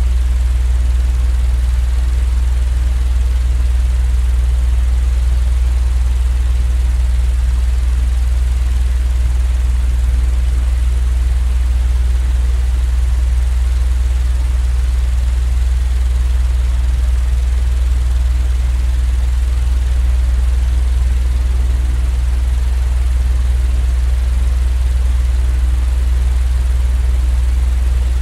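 Continuous machine-noise sleep track: a strong steady low hum with an even hiss above it, unchanging throughout.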